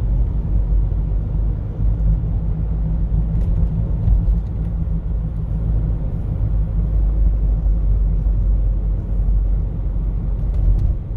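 Steady low rumble of road and tyre noise inside the cabin of a 2012 Toyota Prius V driving along a street.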